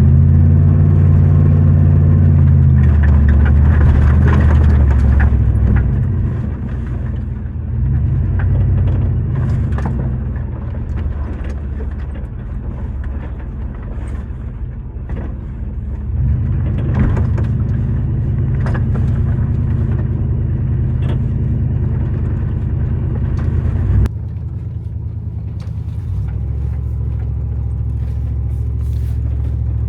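A vehicle's engine running under changing load, its pitch and level rising and falling, with scattered knocks and rattles. It drops off sharply about 24 seconds in.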